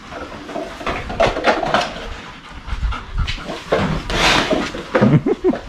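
Dogs panting, a run of short breathy strokes, with one louder breathy rush about four seconds in and a few short high sounds near the end.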